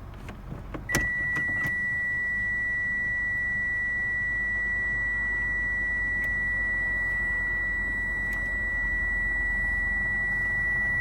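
A Toyota Camry's 2.5-litre engine idling with a low rumble under a light load. About a second in, after a few sharp clicks, a continuous high-pitched electronic beep starts and holds at one steady pitch over the idle.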